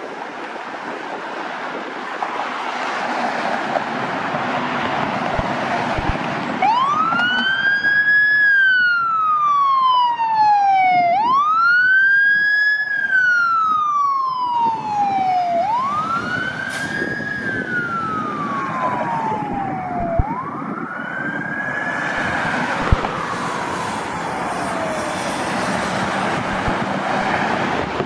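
Fire truck siren wailing over steady road traffic noise: it starts about a quarter of the way in, each cycle sweeping up quickly and then falling slowly, four times over, and fades away near the end.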